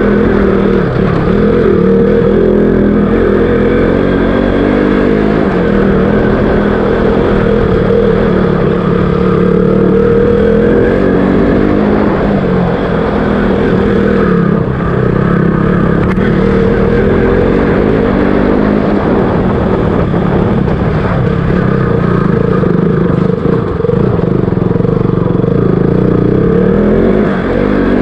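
KTM RC200's single-cylinder engine running under way, its pitch rising and falling with the throttle.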